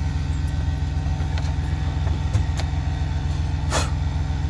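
Steady low hum of an idling engine, with a few faint clicks and a short swishing noise near the end.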